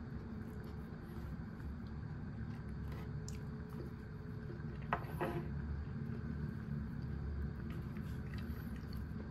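Eating sounds: a low, muffled chewing rumble, with a few light clicks of a spoon against a plastic takeaway curry tray around three and five seconds in.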